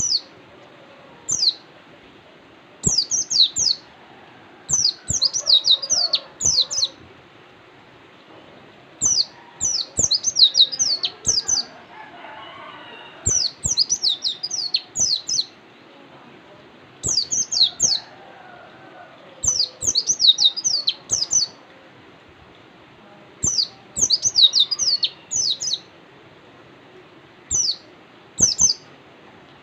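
White-eye (pleci) singing: bursts of quick, high, downward-sweeping chirps, from two or three notes to about a dozen in a run, repeating every second or two.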